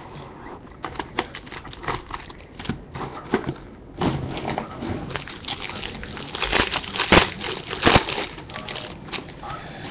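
Sports cards and their packaging being handled: a run of crinkling, rustling and clicking, busiest and loudest from about four to eight seconds in, with two sharp clicks near the end of that stretch.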